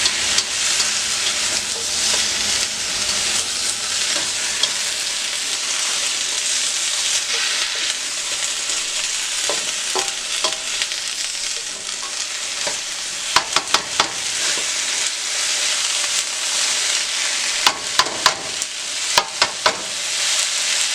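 Onions, garlic and vegetables sizzling in hot oil in a pan as they are stir-fried. Sharp clacks of the utensil against the pan come in a quick run of four about two-thirds through and again in a cluster near the end.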